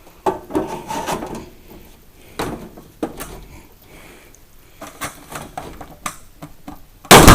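Parts of a salon hair dryer being handled and fitted by hand: scattered clicks, knocks and rubbing. Just before the end comes a sudden loud bang, the loudest sound here, as something slips or snaps.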